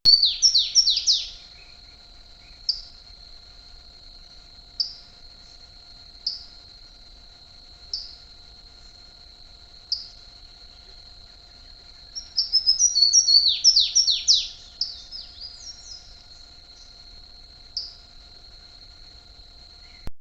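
A songbird singing: quick runs of falling whistled notes near the start and again around the middle, with single short chirps every couple of seconds between them, over a steady high-pitched tone.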